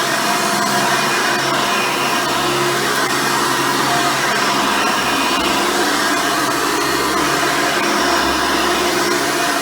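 Hoover Elite upright vacuum cleaner, with its original 7-amp motor and seven-blade fan, running steadily while vacuuming: an even drone carrying a few fixed whining tones.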